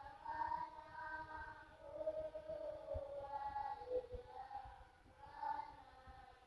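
Faint singing by a group of children, held sung notes moving through a simple melody.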